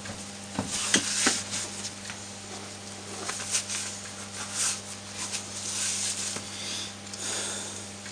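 Engine valve being lapped into its seat in the cylinder head with diamond paste: irregular gritty scraping swishes and a few sharp clicks of metal on metal, under a steady low electrical hum.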